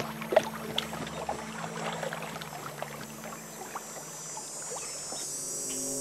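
Osprey bathing in shallow water: irregular splashes and drips as it beats its wings in the water, the loudest splash about half a second in.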